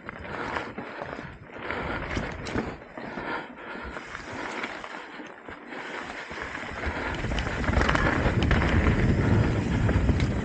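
Trek Top Fuel 8 mountain bike rolling fast down a dirt singletrack, the tyres running over dirt and roots with scattered knocks and rattles from the bike. Wind rushes over the microphone and grows louder and heavier in the last few seconds.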